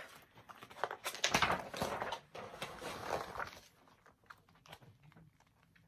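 Paper rustling and scraping as a large spiral-bound picture book is handled and a page is turned, loudest over the first three seconds, then a few faint ticks.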